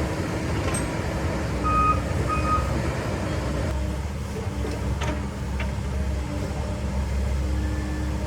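Volvo EC140 excavator's diesel engine running steadily under work, with two short high beeps about two seconds in and a few sharp snaps around five seconds.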